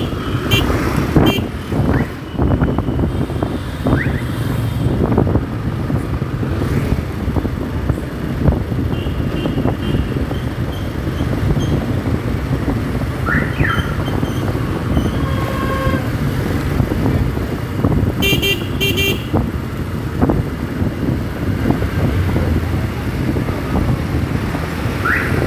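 Motorcycle riding along a city street, its engine and road noise running steadily, with traffic horns beeping in short repeated toots a couple of times.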